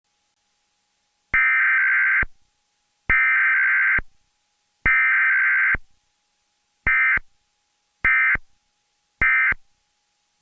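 Emergency Alert System SAME data tones for a Required Weekly Test: three digital header bursts of about a second each, then three short end-of-message bursts.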